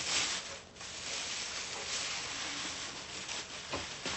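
Plastic bag crinkling and rustling as it is pulled off a pressure cooker, loudest in the first half-second.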